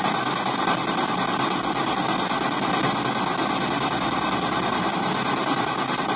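Spirit box (ghost box) radio sweeping through stations, played through a portable speaker: a steady, loud hiss of radio static.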